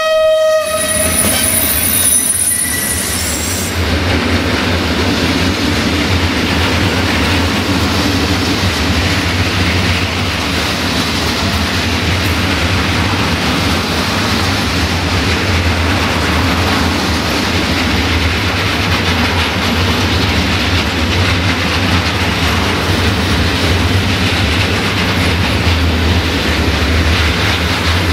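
Electric freight locomotive (CFR Marfă 474 050-8) sounding its horn in one blast as it passes, fading over the first few seconds. Then comes the steady rolling rumble and clatter of its freight wagons going by.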